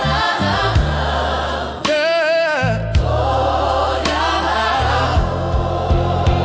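Christian R&B gospel music: wordless sung notes with a wavering vibrato and choir-like backing vocals over bass and drum hits.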